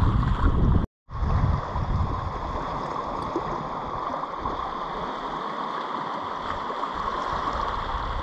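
Steady rush of sea water washing around coastal rocks, with wind rumbling on the microphone at the start. The sound cuts out completely for a moment about a second in, then the even wash carries on.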